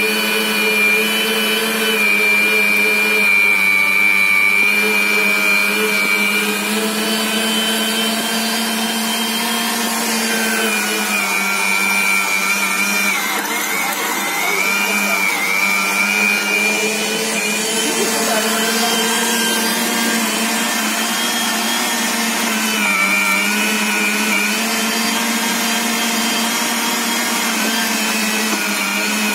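Moulinex electric meat grinder running and mincing raw beef and pork, its motor whining steadily. The pitch sags briefly about thirteen seconds in and again a little after twenty seconds, as the motor takes the load of the meat being fed through.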